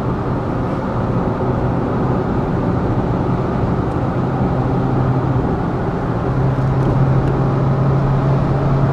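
Inside the cabin of a Citroën C4 with the 1.6 VTi four-cylinder petrol engine, cruising and gently accelerating at about 125–135 km/h. A steady engine hum sits under tyre and wind noise, growing a little louder about six seconds in as the speed rises.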